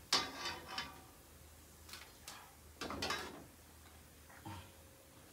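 Household clatter: a few separate knocks and clanks of things being handled and set down, two louder ones with a brief metallic ringing, the first at the very start and the second about three seconds in.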